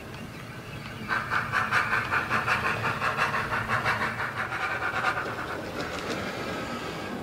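Steam-locomotive sound from the Howes DCC sound decoder in a Hornby Standard Class 4 '4MT' model, played through a 24mm bass-enhanced speaker in the tender: chuffing with steam hiss at about three beats a second. It grows louder about a second in and drops back about five seconds in, over the quieter running of the model train on the track.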